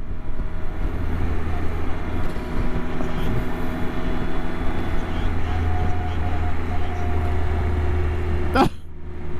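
Motorcycle engine running at a steady cruising speed, with wind and road noise over the rider's microphone.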